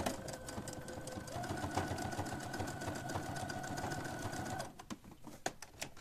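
Electric domestic sewing machine stitching, a fast even needle clatter over the motor's whine, which picks up speed about a second and a half in. The machine stops near the end, followed by a few single clicks.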